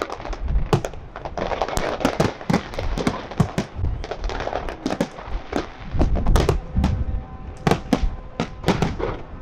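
Fireworks display: aerial shells and comets going off in rapid, overlapping bangs, several a second, with no let-up, over a continuous noisy wash from the bursts.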